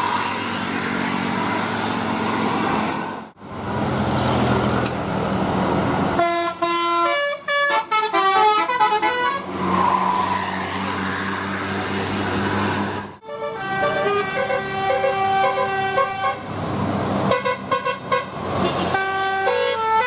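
Indonesian bus 'telolet' horn (Basuri multi-trumpet musical horn) playing quick melodies of stepped notes in three bursts, the first about a third of the way in. Between the bursts there is steady bus engine and road noise.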